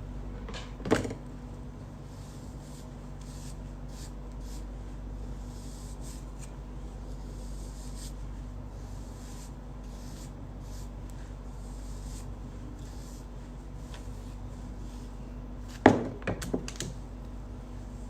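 A few sharp knocks or clicks from objects being handled: one about a second in and a short cluster near the end, over a steady electrical hum and background noise.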